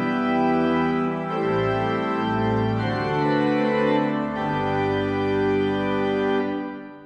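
Organ playing slow sustained chords that change every second or so, fading out near the end.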